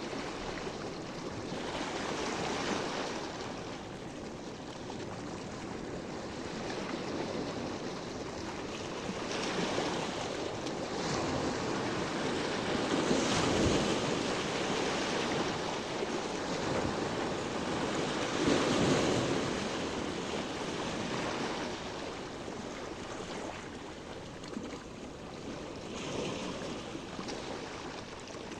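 Sea waves washing onto the shore, a steady rush that swells and eases in slow surges, with the biggest swells about halfway through and again about two-thirds in.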